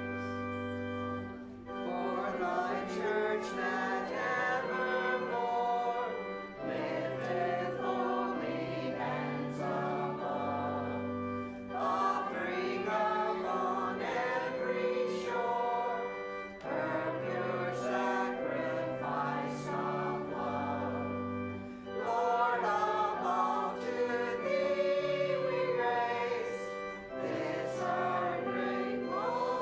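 A church choir singing with instrumental accompaniment that holds long, steady bass notes, in phrases with brief pauses every few seconds.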